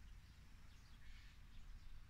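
Near silence: a faint outdoor background with a low rumble and a few faint, distant bird chirps around the middle.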